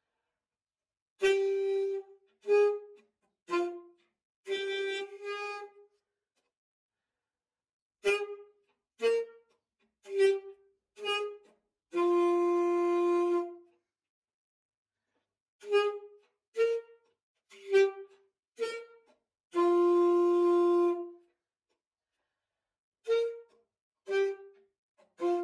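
Alto saxophone played solo: short phrases of detached notes with gaps of silence between them, and two longer held notes, one about halfway through and one about four-fifths of the way in.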